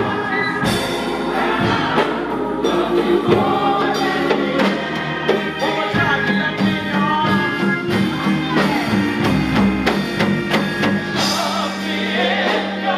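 Gospel choir singing with live band accompaniment: sustained keyboard chords under the voices and a drum kit keeping the beat.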